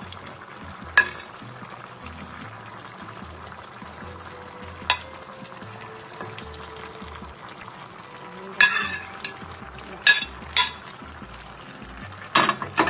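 A spoon knocks and scrapes against a plate and the rim of a cooking pot as shredded cabbage is pushed into the soup: several sharp knocks at irregular intervals, with a cluster near the end, over a steady hiss from the simmering pot.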